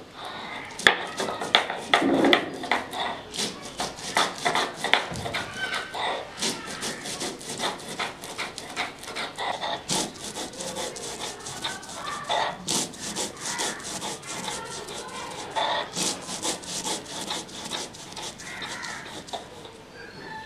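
Rice being ground by hand on a flat grinding slab with a cylindrical roller: repeated rubbing, scraping strokes as the grains are crushed into paste, with sharp crackling clicks, densest in the first few seconds.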